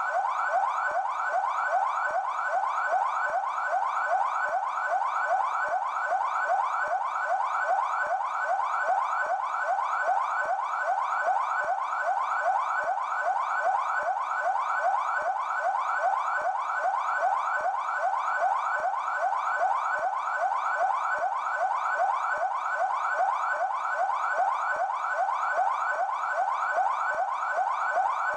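São Paulo Military Police (PMESP) siren sounding its yelp tone: a steady, fast-repeating series of rising sweeps, several a second, with no break.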